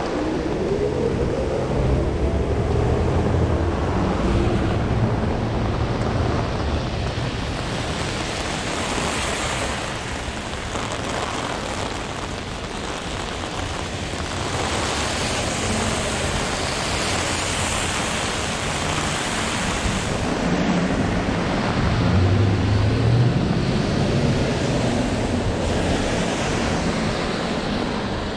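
Strong storm wind buffeting a GoPro microphone, a low rumble that surges and eases, over the steady hiss of heavy rain. The buffeting is strongest near the start and again about three-quarters of the way through.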